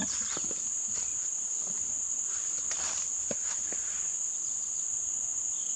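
A steady, high-pitched chorus of insects runs without a break. A few faint clicks and rubs come from a rangefinder being handled.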